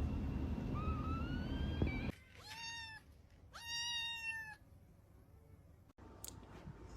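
Kitten mewing: three high mews, the first fainter and rising in pitch, the next two stronger and held steadier, about a second apart.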